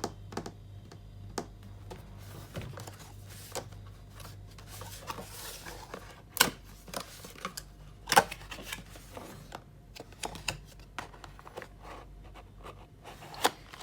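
Handling of a cardboard product box: scattered taps, scrapes and clicks, with the two loudest knocks about six and eight seconds in.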